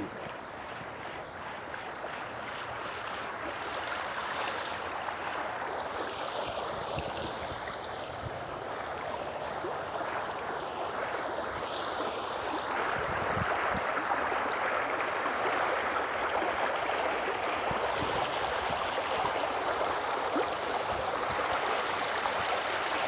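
Running water of a small stream, a steady rushing that grows louder over the first dozen or so seconds and then holds even.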